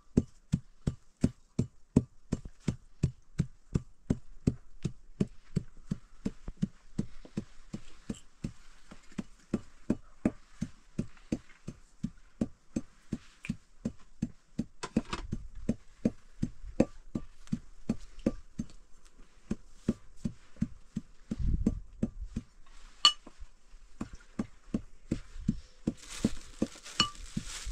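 Metal pestle pounding dried herbs in a metal mortar: steady, even knocks with a slight metallic clink, about two and a half strokes a second. A steady hiss comes in near the end.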